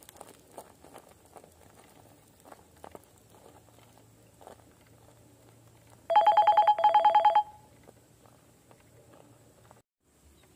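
Faint clicking and crunching of an RC crawler's tyres on rock, broken about six seconds in by a loud electronic trilling ring in two short bursts, like a telephone ringing.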